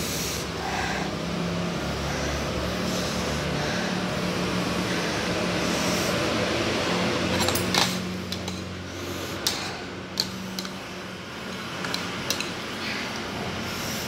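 A metal spoon and fork clinking and scraping against a ceramic bowl as noodles are stirred and lifted. Several sharp clinks come from about halfway on, the loudest first. A steady low hum runs underneath.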